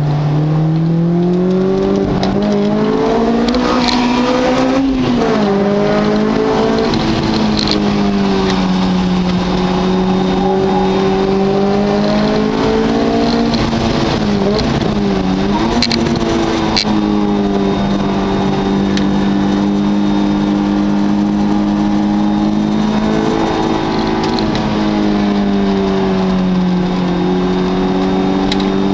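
Car engine pulling hard on a test drive: the revs climb over the first few seconds and drop sharply about five seconds in, then hold fairly steady. They dip and pick up again in the middle and near the end.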